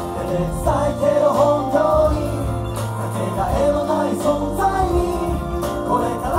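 Male reggae vocal group singing live into microphones over backing music with a steady bass line.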